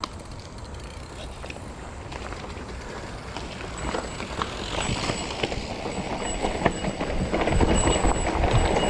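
Bike riding over a rough dirt trail: tyre noise with frequent rattles and knocks, plus a low rumble that grows louder through the stretch. A faint steady high whine sits over it.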